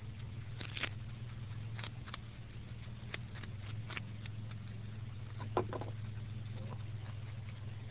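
Groundhog chewing a carrot: irregular short crunching clicks, with a louder crunch about five and a half seconds in, over a steady low hum.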